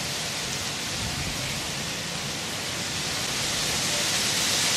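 Steady hiss of outdoor background noise, growing slightly louder from about three seconds in.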